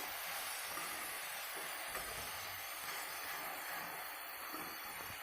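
Chopped onions, capsicum and cabbage sizzling in ghee in a hot kadhai over a high flame: a steady, even hiss.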